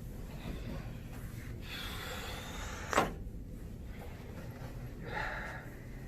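A single sharp crack about three seconds in, a joint popping under a chiropractic thrust adjustment, with a breathy exhale just before it and another breath a couple of seconds after.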